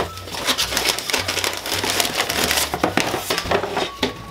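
Paper packaging and a wrapped bundle of clothes rustling and crinkling as they are handled and lifted out of a cardboard box.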